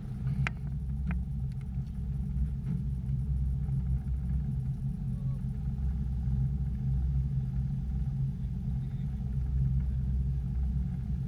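Fishing boat's engine running with a steady low hum. Two sharp clicks come about half a second and a second in.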